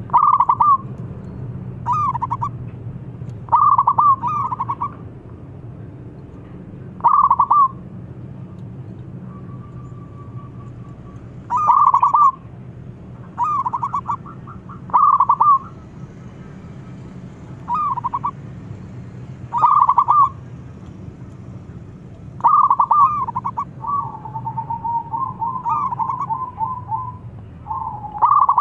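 Zebra dove (perkutut) cooing: short staccato trilled coos repeated every second or two, with a longer run of rippling notes near the end. A low steady hum lies underneath.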